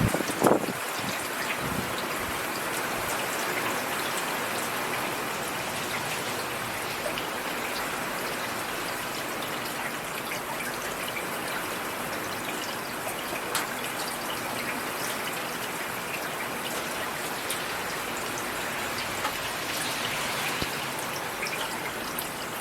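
Steady rain falling, with scattered drop ticks and a brief louder knock about half a second in.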